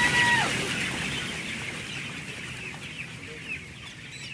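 A large flock of chickens in a crowded poultry house calling together in a steady, dense chatter. At the very start there is a loud flurry, likely wings flapping, with one drawn-out squawk, and it dies down within the first half second.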